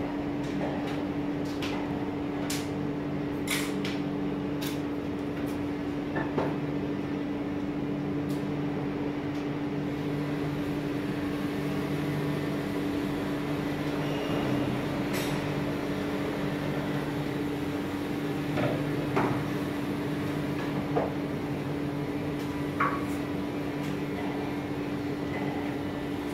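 A steady mechanical hum with a constant tone, and scattered light clicks and taps as test probes are set against the copper commutator segments, most of them in the first few seconds.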